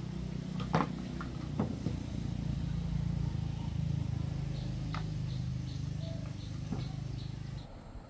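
A small engine running steadily at a low pitch, cutting off shortly before the end, with a few sharp knocks along the way.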